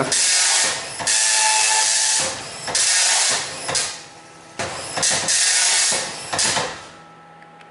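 HP 2631G dot-matrix printer running its self-test: the print head rasps across the paper in passes about a second long, with short breaks between lines. It stops about seven seconds in.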